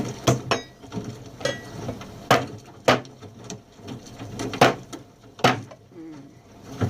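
Kitchen knife cutting garlic cloves on a chopping board: irregular sharp knocks of the blade hitting the board, about one every half second to a second.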